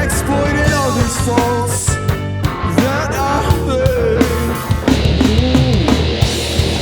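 Rock band playing live: distorted guitars, bass and drums, with a bending melodic line over them. About five seconds in the sound gets denser and brighter as the band moves into a heavier part.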